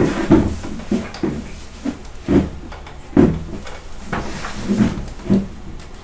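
Microwave oven door being moved open and shut by hand, a string of irregular clunks and clicks as it knocks against the oven frame and latch; the door spring is broken, so the door swings loosely.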